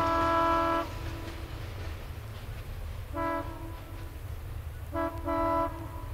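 Diesel locomotive air horn sounding in blasts: a long blast that cuts off under a second in, a short blast about three seconds in, then a short and a longer blast near the end, over a steady low rumble.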